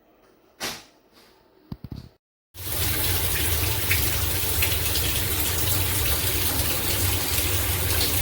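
A couple of short knocks, then after a brief break, water spraying steadily from a rainfall shower head; the spray cuts off abruptly near the end.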